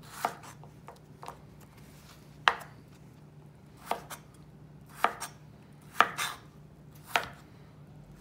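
Chef's knife chopping a russet potato into half-inch dice on a plastic cutting board: a sharp knock of the blade hitting the board with each cut, roughly once a second, seven or so cuts.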